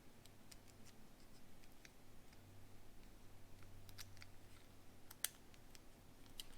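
Faint, scattered clicks and taps of small model parts being handled and pressed together, with a sharper single click about five seconds in.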